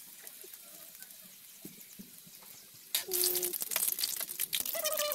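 Spring rolls deep-frying in hot oil in a wok: a faint scattered crackle, then about three seconds in a sudden loud, dense sizzle as a slotted spatula is worked among the rolls.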